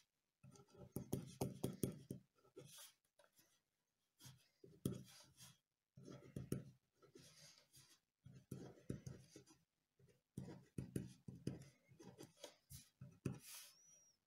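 Pen writing on paper: faint scratching in short runs of strokes, with brief pauses between them.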